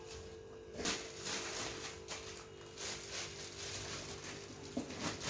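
Rustling and crinkling of plastic grocery packets while dry goods are packed into kitchen storage containers, with a sharp knock of a container about a second in.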